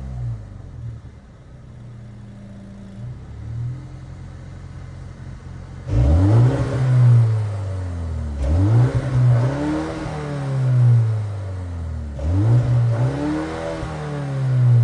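2025 BMW M235 Gran Coupe's turbocharged 2.0-litre four-cylinder engine idling for about six seconds after its revs settle, then revved three times, each quick climb in pitch dropping slowly back toward idle.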